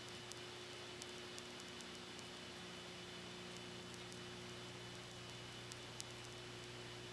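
Steady recording hiss with a low electrical hum, and a few faint scattered clicks; no music, voices or crowd stand out.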